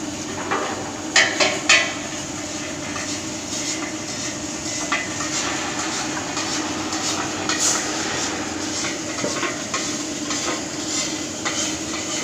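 Electric arc welding on a steel pole, crackling steadily, with two sharp metal clanks a little over a second in.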